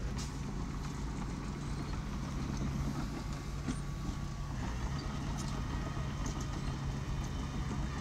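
Small bulldozer's engine running steadily, with a few scattered light clicks and clatter.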